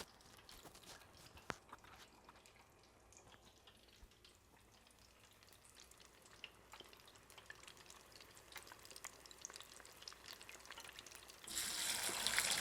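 Faint scattered ticks and crackles from a deep fryer's heating oil, then about a second before the end a loud, steady frying sizzle starts suddenly: breaded chicken drumsticks frying in hot oil.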